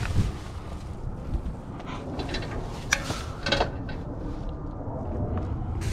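Steady low rumble of wind and handling noise on the microphone, with a few short rustles and clicks in the middle.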